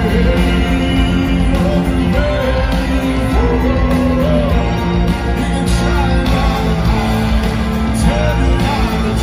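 Live rock band playing loudly through an arena sound system, with sustained low notes and a voice singing the melody over them.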